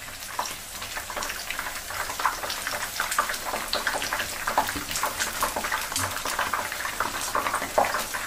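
Batter-coated cabbage rolls deep-frying in oil over medium-low heat, a steady crackle of many small pops.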